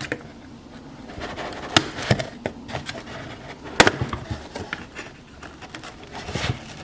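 Plastic toy packaging being handled and the pieces freed from their tray: scattered rustling with irregular small clicks and knocks, and two sharper snaps, one about 2 seconds in and a louder one just before 4 seconds.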